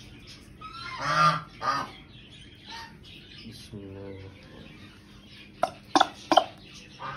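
Peafowl giving two loud calls about a second in, followed by fainter calls. Near the end there are three sharp clicks.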